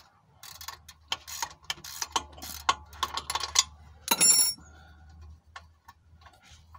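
Ratchet wrench clicking in quick irregular runs as it backs off a 10 mm spring-loaded bolt on a car's exhaust joint, with a short loud squeak about four seconds in and fainter metal ticks after.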